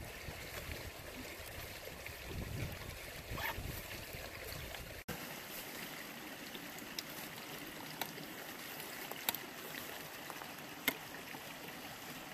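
Small creek running steadily, with a low rumble in the first few seconds and a few faint sharp clicks in the second half.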